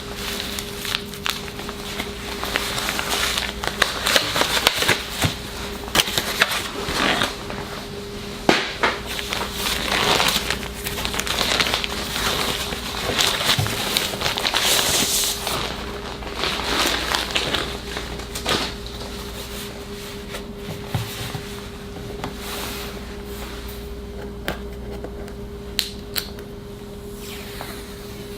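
A laptop's wrapping being opened and handled: irregular rustling and crinkling of packaging with many sharp clicks and taps, busier in the first two thirds and sparser near the end, over a steady faint hum.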